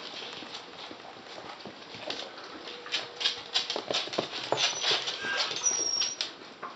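Westie terriers' claws clicking and scrabbling on a hardwood floor as the dogs play, getting busier and louder about three seconds in, with a brief high squeak near the end.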